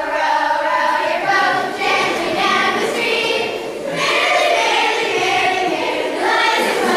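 A group of children singing a slow melody together, in long held notes.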